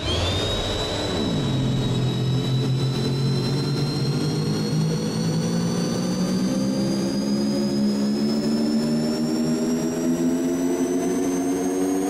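Cinematic riser sound effect: it starts suddenly, sweeps down in pitch over the first second or so, then a noisy, many-layered tone climbs slowly and steadily in pitch, the kind of build-up used to lead into a hit or drop.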